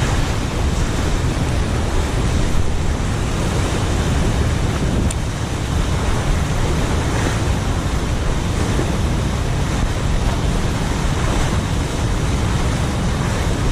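Fast, turbulent river current rushing below a dam's spillway gates, a steady loud wash of water, with wind buffeting the microphone.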